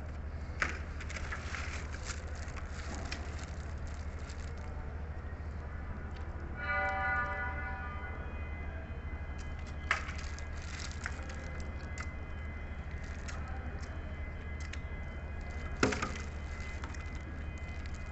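Steady low hum with scattered clicks and crackles, and a bell-like chime with several tones about seven seconds in that rings loud for a second and then fades slowly.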